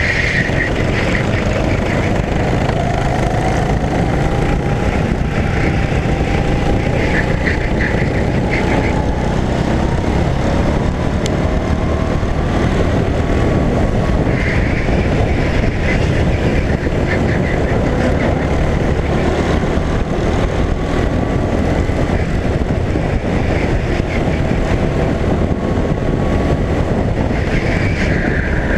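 Onboard sound of a rental go-kart at speed: the small engine's note rises and falls as it accelerates and slows for corners, under a loud, steady rushing noise.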